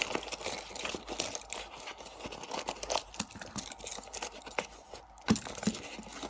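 Tape-wrapped mail packet crinkling and rustling as it is handled and worked open by hand, with irregular crackles and a few sharp clicks.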